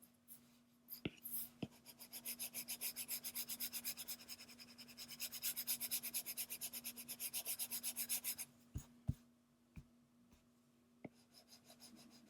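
Colour pencil shading back and forth on sketchbook paper in rapid, even strokes, about five a second, laying in a ground shadow, with a short pause partway through; a few light taps follow near the end.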